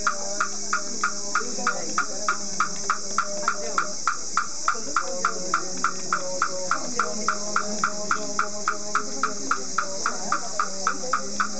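Buddhist sutra chanting by a group of voices, kept in time by a wooden fish (mokugyo) struck steadily about three times a second.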